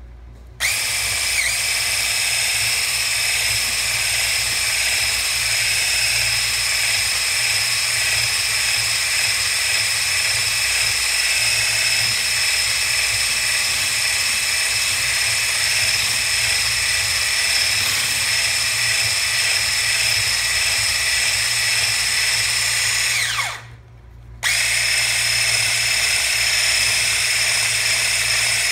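Electric hand blender with a whisk attachment whisking pancake batter: a steady, high-pitched motor whine that starts about half a second in. About five seconds before the end it winds down and stops for about a second, then starts again.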